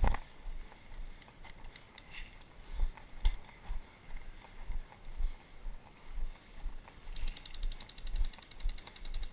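Footsteps of someone walking with a body-worn camera, soft low thuds about twice a second. A rapid, high-pitched ticking buzz comes in about seven seconds in and lasts roughly three seconds.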